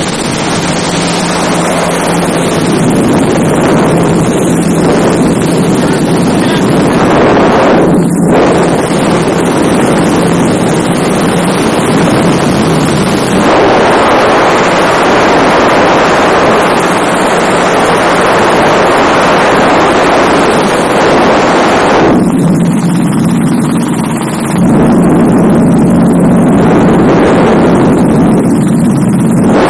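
Small three-seat helicopter in flight, heard from inside the cabin: steady, loud engine and rotor noise with a low hum, mixed with wind rushing over the microphone. The balance of the noise shifts a few times, with a brief dip about eight seconds in.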